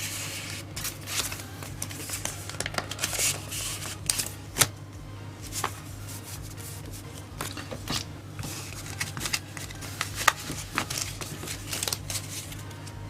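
Yu-Gi-Oh trading cards and booster-pack wrappers being handled: a scattered run of small clicks, card slaps and brief crinkling rustles, over a steady low hum.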